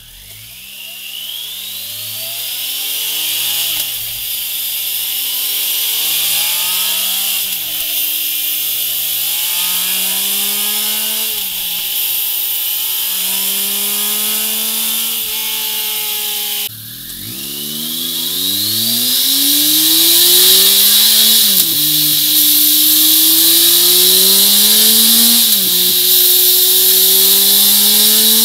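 Triumph Tiger 1050 Sport's 1050 cc inline-three engine heard through its stock exhaust, then, after a cut about two-thirds of the way in, through a MIVV Oval Carbon Cap aftermarket silencer. Each time the engine note climbs for a few seconds and drops back sharply, again and again, over a steady high hiss. The second part is louder.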